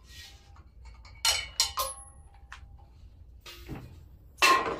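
Several light metallic clinks and knocks, one leaving a short ringing tone, from handling the metal refrigerant cylinders and their fittings.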